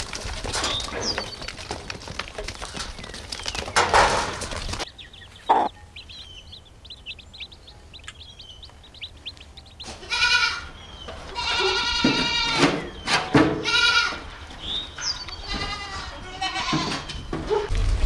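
Goat kids bleating, several quavering calls in the second half. Earlier there are knocks and clatter, then faint high chirps.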